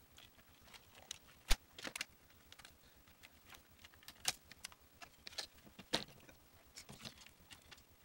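Scissors snipping through the wires of an opened alarm clock, with hands handling its plastic parts: an irregular scattering of sharp clicks, the loudest about a second and a half in.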